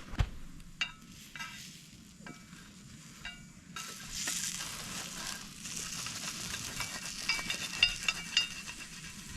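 Cookie dough frying in a tallow-greased pan over campfire coals. A few sharp crackles come first, then a high sizzle with pops sets in suddenly about four seconds in and keeps going.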